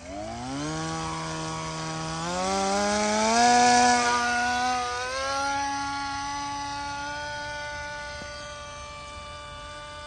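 1400kv brushless electric motor spinning an 8x4.5 propeller on a foam RC plane, spooling up at launch and in flight: a high whine that rises in pitch in steps as the throttle is pushed up, loudest about four seconds in, then holding steady and slowly fading as the plane flies away.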